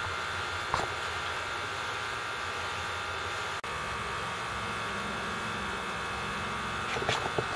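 Steady machinery hum with a faint high whine over an even hiss. It cuts out for an instant a little past halfway, and a lower hum comes in after that. A few faint light taps come near the end.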